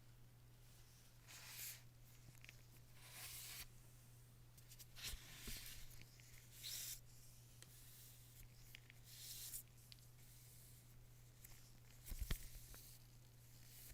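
Packaging being handled: several short, quiet rubbing and tearing swishes of paper and cardboard, then a light knock near the end, over a faint steady low hum.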